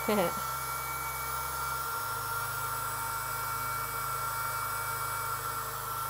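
Atavio USB mini keyboard vacuum running steadily with a high whine as its nozzle is worked over laptop keys.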